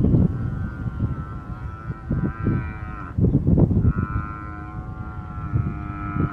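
Cape buffalo bellowing in distress under a lion attack: two long, drawn-out calls, the second starting about four seconds in, over low rough rumbling.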